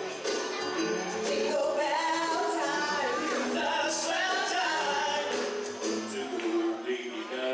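A man and a woman singing a duet over backing music, their voices amplified through microphones.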